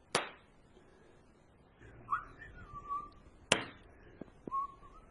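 Two sharp snaps about three and a half seconds apart from a homemade pulse laser rifle, each later followed by a short whistle-like tone that rises briefly and then holds steady.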